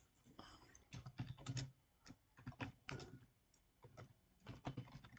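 Keystrokes on a computer keyboard in irregular short bursts as a short terminal command is typed.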